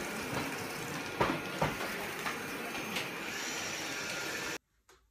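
Robot vacuum cleaner running, a steady noise with a few sharp knocks, cutting off suddenly near the end.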